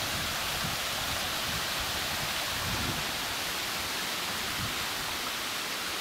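Steady rush of a stream running over small rapids, heard as an even hiss, with irregular low wind rumble on the microphone.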